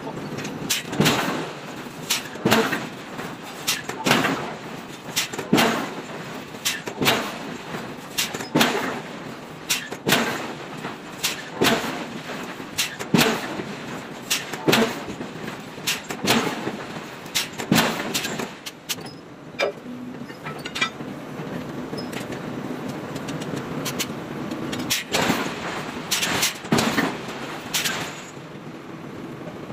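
Forging power hammer striking a red-hot steel forging: heavy blows about every second and a half over a steady machine hum. The blows pause for several seconds past the middle, then a last run of strikes comes near the end.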